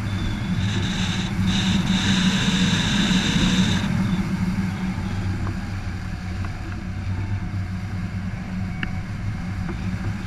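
Wind noise from airflow over the microphone of a hang glider's mounted camera in flight: a steady low hum under a rushing hiss, which grows louder and higher for the first few seconds and then settles.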